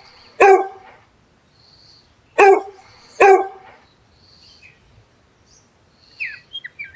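Dog barking: a single bark about half a second in, then two more barks close together a couple of seconds later. Faint high squeaks near the end.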